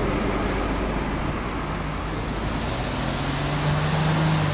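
Exhaust note of a Subaru Impreza Sport 1.6i's flat-four (boxer) engine at the tailpipe, idling steadily and getting a little louder near the end.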